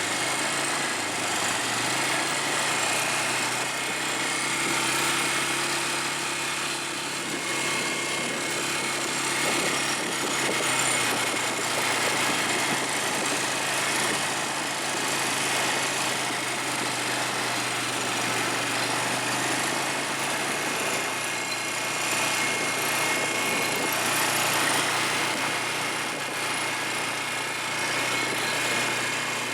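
Small ATV engine running steadily under way, its low hum carried over a constant rush of wind and road noise.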